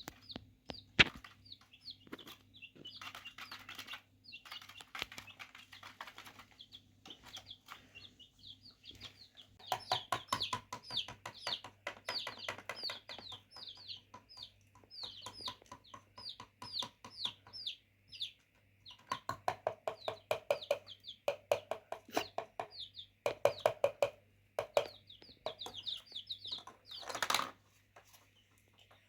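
Chickens peeping over and over in short, falling high notes, with dense pecking-like clicks and taps and a sharp knock about a second in.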